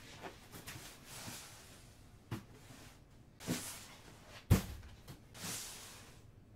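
Handling and movement noise around a cardboard box: a few light knocks, one heavy thud about four and a half seconds in, then a soft rustle.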